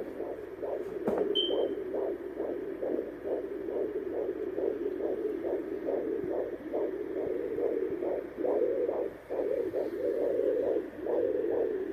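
Fetal heartbeat picked up by a handheld fetal Doppler and played through its speaker: a fast, even pulse of nearly three beats a second, the rate of a first-trimester baby's heart. A brief high tone sounds about a second in.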